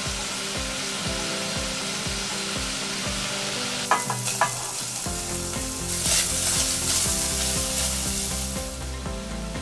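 Bacon strips sizzling in a pot. About four seconds in, minced garlic is scraped in off a metal tray with a few sharp clinks, and the sizzle grows louder as the garlic hits the hot fat and is stirred with a spatula.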